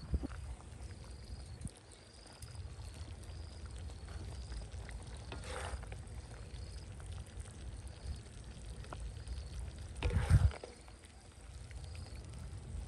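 A metal spatula scraping in a steel wok as stir-fried pork and vegetables are scooped out onto a banana leaf, with a scrape about halfway through and a louder knock near the end. A high chirp repeats steadily in the background.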